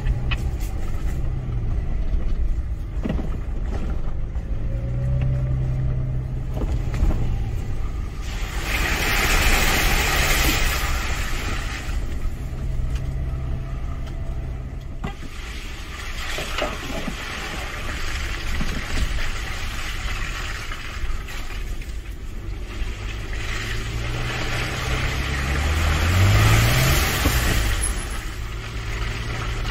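Toyota FJ Cruiser's V6 engine running at low speed, heard from inside the cab, with tyre and gravel noise on a dirt track swelling twice. Near the end the engine revs up briefly.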